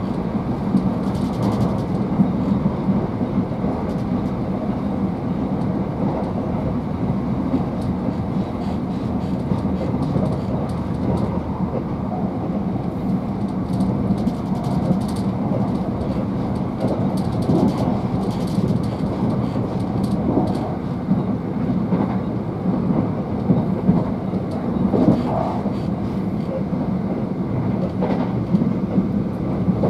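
Cabin running noise of a Southern Class 377 Electrostar electric multiple unit at speed: a steady rumble of wheels on the rails with a low hum, and scattered clicks and knocks from the track.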